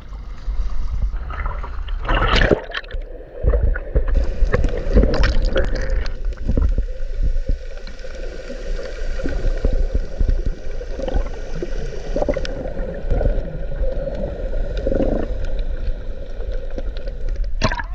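Muffled underwater gurgling and bubbling from a submerged snorkeling camera, with crackling splashes of swimming strokes that are thickest in the first few seconds.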